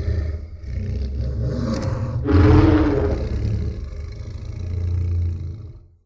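Godzilla's roar as used in the 2001 film: a deep monster roar that swells again about two seconds in and fades out near the end.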